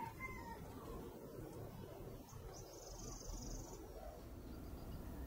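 Faint background animal calls: a brief pitched call right at the start, then a high, thin buzz lasting about a second around three seconds in.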